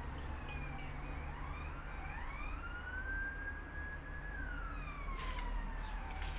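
A siren wailing in one slow cycle: it rises in pitch, holds for a couple of seconds, then falls slowly before starting to rise again, over a steady low hum. A few faint clicks come near the end.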